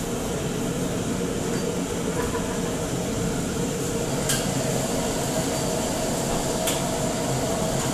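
Steady noise of a restaurant kitchen's gas wok range and overhead exhaust hood running, with two sharp metal clinks, one about halfway through and one near the end.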